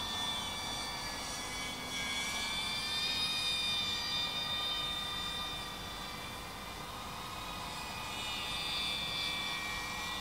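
DJI Avata FPV cinewhoop drone in flight: the high whine of its motors and ducted propellers, several tones drifting up and down in pitch as the throttle changes.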